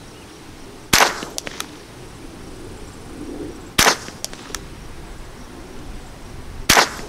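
Ruger 10/22 semi-automatic rifle firing three .22 LR shots about three seconds apart, each a sharp crack followed by a couple of faint ticks.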